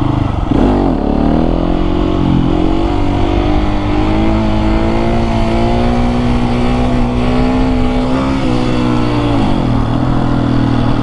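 Husqvarna 701 supermoto's single-cylinder engine pulling hard in second gear for a wheelie: the revs dip and then climb over the first couple of seconds, hold high and steady, and drop about nine and a half seconds in as the throttle is closed.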